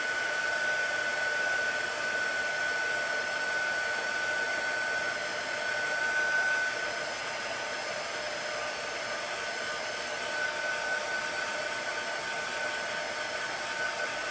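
Handheld craft heat tool blowing hot air steadily onto freshly applied ink on a t-shirt, a fan hiss with a thin steady whine. It drops a little in loudness about halfway through.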